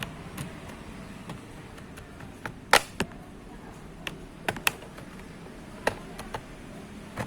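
Sharp plastic clicks and snaps, about nine of them and irregularly spaced, the loudest a little under three seconds in. These are the clips of a laptop's plastic bottom case being pried apart with a pry tool.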